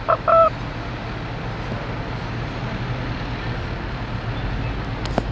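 Steady street noise with the low hum of an idling fire engine's diesel engine. A few short honking tones in the first half-second, and a single sharp click near the end.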